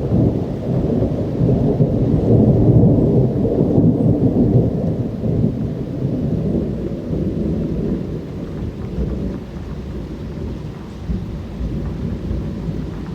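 A long rolling rumble of thunder, loudest a few seconds in and slowly dying away, over steady rain.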